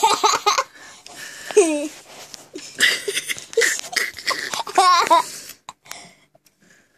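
Laughter in repeated breathy bursts, dying away about five and a half seconds in.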